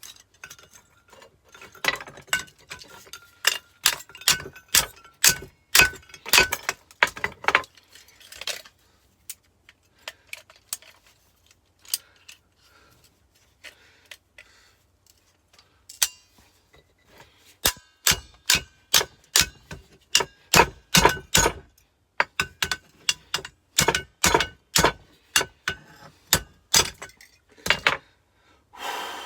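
Steady hammer blows on the metal of a car air-conditioning compressor, about two a second, each with a short metallic ring, in two long runs with a pause of scattered knocks between them: metal being beaten apart to free the copper inside.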